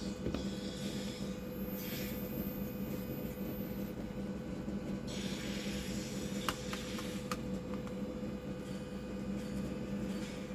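Faint rubbing and a few light clicks from hand work on an amplifier heatsink while thermal paste is applied, over a steady electrical hum. The clicks fall together about two thirds of the way through.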